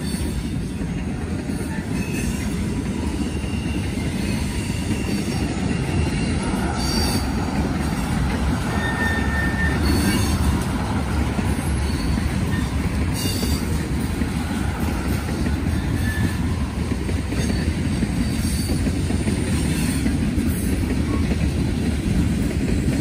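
Freight train's intermodal cars rolling past close by: a continuous rumble of steel wheels on rail, with now and then a short, high wheel squeal.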